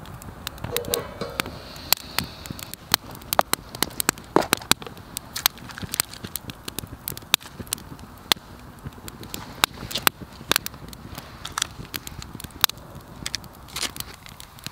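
Wood campfire crackling steadily, with frequent irregular sharp pops.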